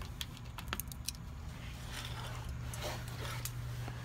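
Ratchet wrench clicking a few times as the last 8 mm bolt of the plastic engine under-cover is backed out, followed by a rustling, scraping sound. A steady low hum runs underneath.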